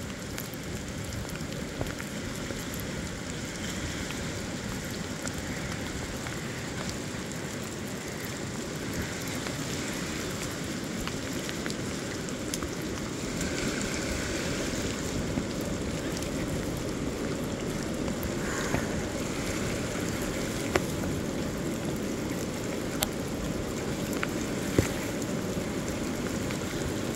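Steady rushing of the South Fork American River in major flood, mixed with falling rain, with a few sharp taps here and there.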